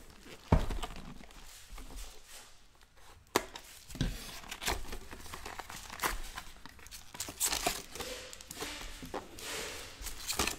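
A sealed 2012 SP Authentic football card box being opened by hand: plastic wrap and cardboard crinkling and tearing, and foil packs rustling as they are taken out, with several sharp knocks of cardboard being handled.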